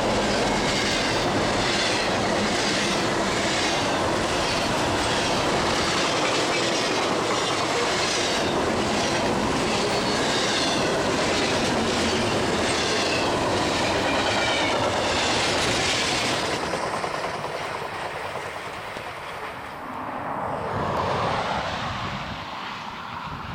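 Double-stack intermodal train's well cars rolling past at speed: a dense, steady rumble of steel wheels on rail with a rhythmic clickety-clack. About two-thirds through the noise falls away, with a short swell of noise near the end.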